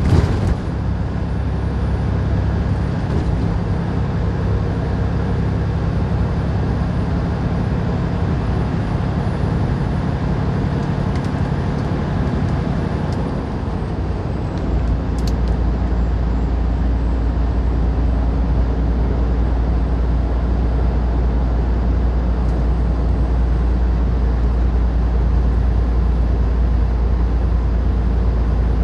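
Semi-truck cab noise at highway speed: a steady engine drone under road noise. About halfway through, the engine hum shifts down to a deeper, stronger drone.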